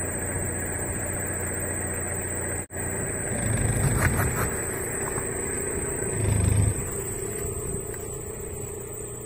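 Tata Indica car's engine running at low speed as the car rolls over a plastic bottle of mango juice. Crackling comes around four seconds in and a louder low thud a couple of seconds later, as the bottle is crushed and bursts.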